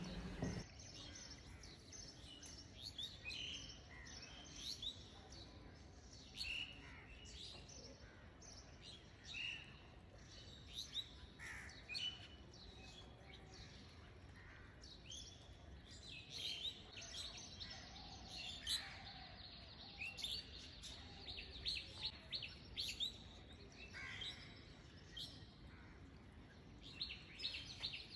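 Faint birds chirping: many short calls at irregular intervals.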